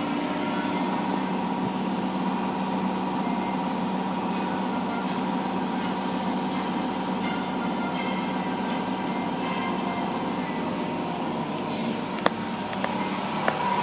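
Automatic car wash machinery running around the car, heard from inside the cabin: a steady mechanical hum under the hiss of water spray and brushes, with a few sharp knocks near the end.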